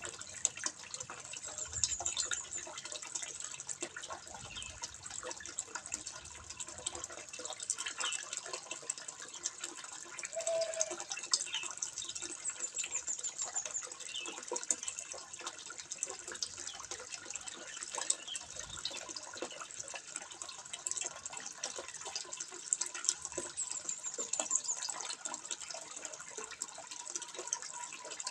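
Water trickling and splashing into a fish pond: a continuous, irregular patter of small splashes and drips.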